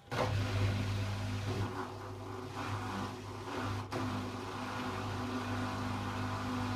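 Samsung WF6700 front-loading washing machine starting up abruptly and running with a steady low hum, with a few brief dips in the first few seconds.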